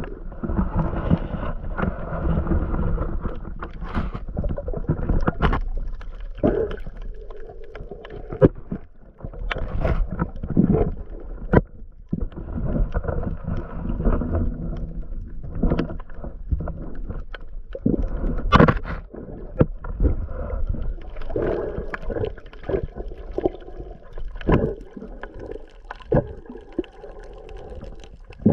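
Muffled underwater sound heard through a GoPro Hero 8's microphone below the surface. It is a low churning rumble of moving water with gurgling, broken by scattered sharp clicks and knocks. The loudest click comes about two-thirds of the way in.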